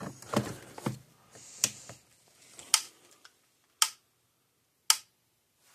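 Gallagher M800 electric fence charger pulsing, a sharp tick about once every second, four times, after a few knocks of handling in the first second. The steady pulses show the repaired unit is running.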